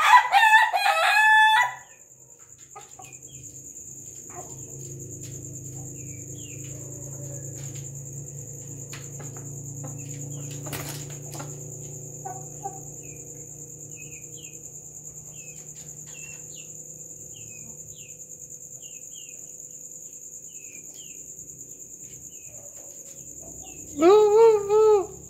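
Ayam ketawa (laughing rooster) crowing in its choppy, laughing style, a run of short pitched notes that ends about two seconds in. Then comes a long hush with a low hum and faint, scattered high chirps, and near the end the rooster starts another loud crow.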